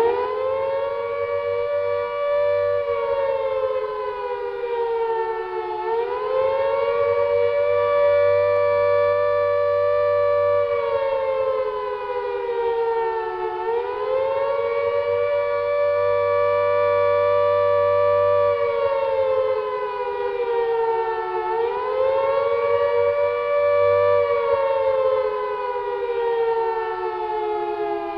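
Air raid siren sounding the alert: a wail of two close pitches together that rises, holds and slowly falls, about every eight seconds. Near the end it falls away for longer.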